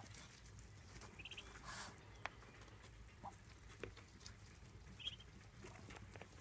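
Muscovy ducklings pecking at a dish of feed: faint scattered clicks and taps of bills on the dish, with a couple of brief soft peeps.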